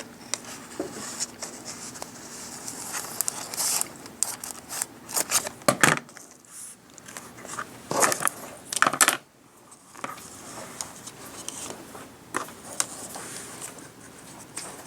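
Scissors snipping through craft material in a run of short cuts, loudest and most frequent in the first nine seconds, followed by quieter handling and rustling.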